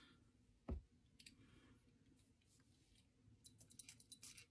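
Near silence broken by handling of a perfume bottle: one soft knock about a second in, then a few faint small clicks near the end.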